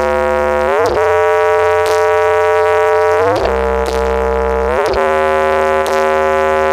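Loud electronic music from a horeg sound system: a synthesizer lead holds long notes and slides in pitch into each new one, over deep sustained bass notes.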